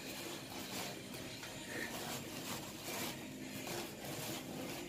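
Quiet scraping and rubbing of a cardboard box and polystyrene packing as a boxed stand mixer is worked loose and pulled out.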